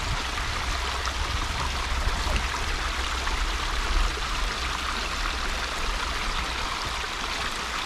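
Small woodland waterfall cascading through a narrow rock cleft: a steady, loud rush of splashing water.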